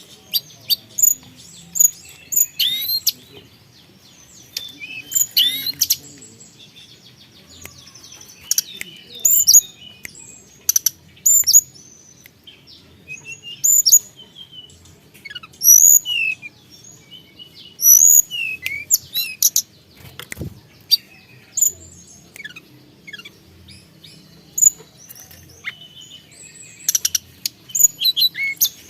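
Tledekan gunung songbird singing a lively, varied song: sharp high whistles and quick up-and-down sweeping notes in repeated bursts with short pauses between them.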